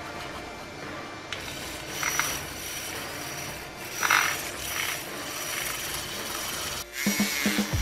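Metal spoon briskly beating instant coffee, sugar and a little milk into a paste in a small glass tumbler, scraping and clicking against the glass, with louder moments about two and four seconds in.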